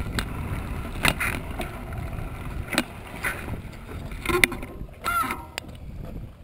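Bicycle rolling over sandy, gravelly ground, with low tyre and wind rumble and scattered clicks and rattles from the bike. About five seconds in there is a short squeak, and the rumble then drops away as the bike comes to a stop.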